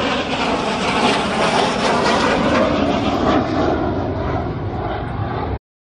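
T-33 jet trainer making a flyby, its turbojet giving a loud, steady rushing roar that swells, then eases slightly, before cutting off abruptly near the end.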